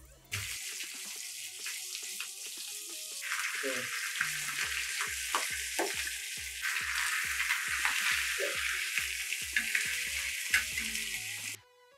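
Masala-coated sardines sizzling as they shallow-fry in hot oil on a flat griddle; the sizzle starts abruptly, grows fuller about three seconds in, and cuts off suddenly near the end. Faint background music with a steady beat runs underneath.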